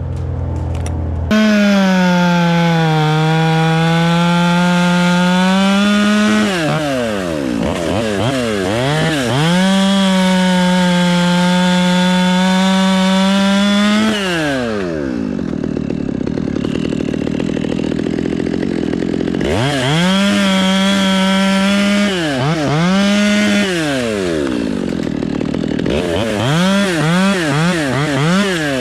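Two-stroke chainsaw cutting wood: it runs at full throttle in three long stretches, sagging briefly under load in the first, with quick throttle blips and spells of slower running between the cuts.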